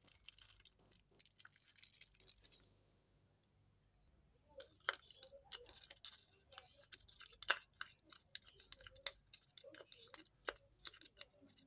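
A spoon stirring tamarind into water in a thin plastic cup: faint, irregular clicks and scrapes as it knocks against the cup. In the first couple of seconds, soft crinkling of the plastic wrap the tamarind is squeezed out of.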